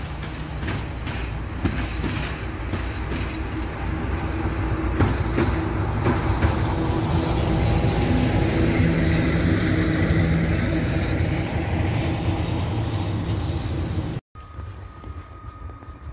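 A locomotive running light, with no train behind it, passes close by. Its steady low hum grows louder toward a peak about ten seconds in, with clicks from the wheels over the rail joints. The sound cuts off suddenly about 14 s in to a much quieter background with a faint steady tone.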